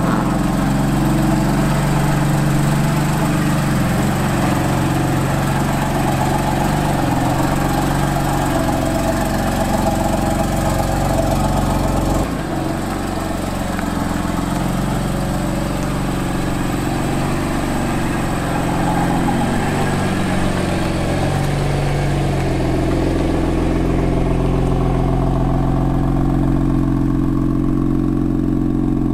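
BMW M3's twin-turbo straight-six engine running steadily at idle and low revs as the car creeps along, with a brief dip about twelve seconds in.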